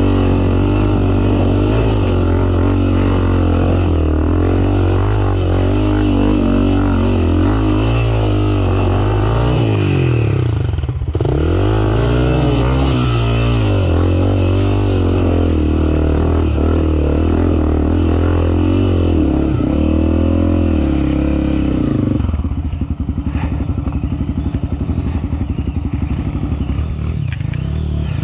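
Enduro dirt bike engine running close by, its revs rising and falling under load, with a brief throttle cut about eleven seconds in. After about twenty-two seconds it drops to lower, rougher running.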